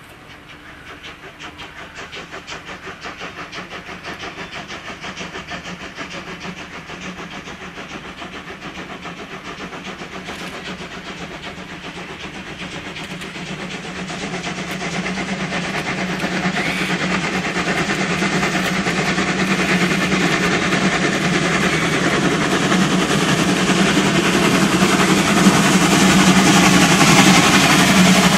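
DR class 44 three-cylinder 2-10-0 steam locomotive working a heavy freight train: a pulsing exhaust beat under loud hissing from its open cylinder drain cocks, growing steadily louder as it approaches and passes close by.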